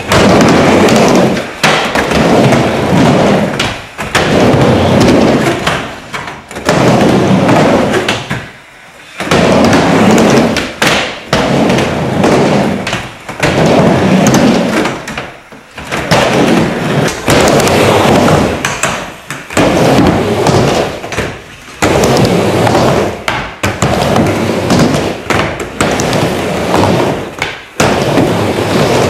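Skateboard wheels rolling back and forth across a wooden mini ramp, a loud rumble on each pass every second or two, broken by sharp clacks and thuds of the board.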